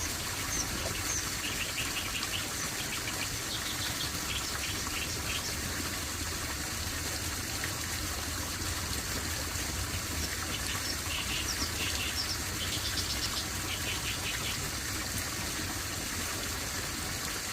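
Steady rush of flowing water, with small birds chirping over it in quick runs of short high notes, one bout in the first few seconds and another starting about ten seconds in.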